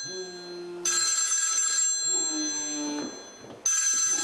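Mobile phone ringing: a ringtone in repeating bursts of bright high tones, one about a second in and another near the end, with lower tones between them.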